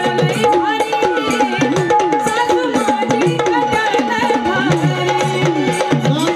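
Live Marathi gondhal folk music: hand drums beat a fast, steady rhythm under a wavering melodic line, with a high tone held steady throughout.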